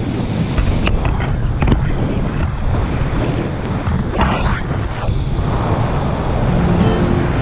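Wind rushing over an action camera's microphone during a tandem paraglider flight: a steady, loud low rumble with a few light clicks. Acoustic guitar music comes in near the end.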